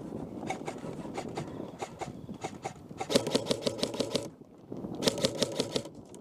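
Airsoft electric gun firing: scattered single shots, then two full-auto bursts of about a second each, rapid clicking at roughly a dozen shots a second, the first about three seconds in and the second near five seconds in.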